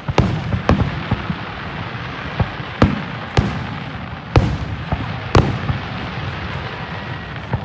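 Aerial fireworks shells bursting in a display: a series of sharp bangs, roughly one every second, some in quick pairs, over a steady crackling hiss.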